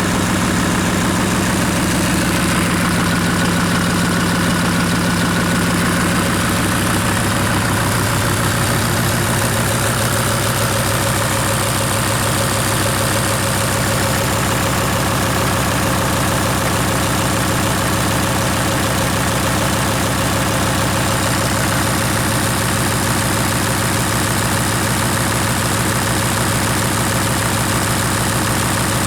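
Engine code 665926 idling steadily while being run for an oil pressure check.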